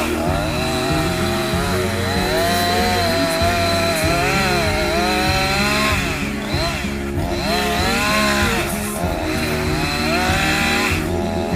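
Chainsaw running, its engine pitch rising and falling every couple of seconds as it is revved up and eased off, with a song playing underneath.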